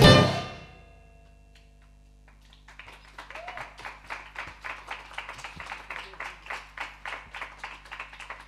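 The last chord of a live acoustic band song stops in the first second. After a short pause a small audience claps, about four claps a second, fading near the end.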